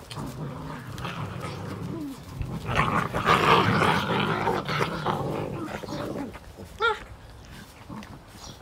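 A pack of seven-week-old Belgian Malinois puppies growling and snarling as they fight over one toy, loudest from about three to six seconds in. Near the end one puppy gives a single short, high yelp.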